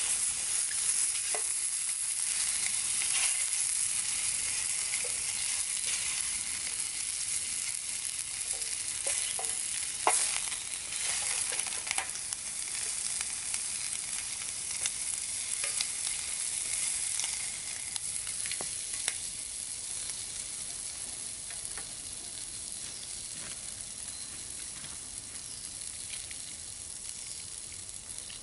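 Bacon sizzling in a frying pan on a camp stove, with clicks and scrapes of a wooden spatula stirring it. The sizzle dies down gradually in the second half.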